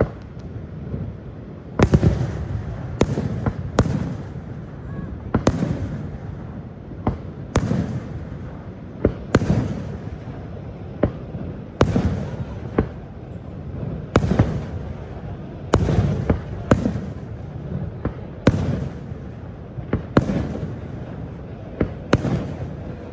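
Fireworks exploding overhead: a rapid, irregular run of sharp bangs, about one or two a second, some followed by a short echoing rumble.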